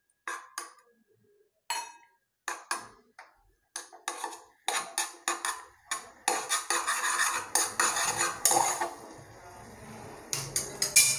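Metal spoon clinking and scraping against a stainless steel pot while stirring ginger in melted butter. It starts as a few separate taps, then turns to quick, steady stirring strokes about halfway through.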